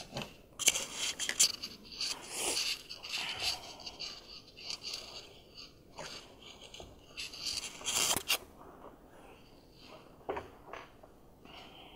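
Rustling and scraping as a bag and small objects are handled, in irregular bursts that are loudest about a second in, around two and a half seconds and around eight seconds.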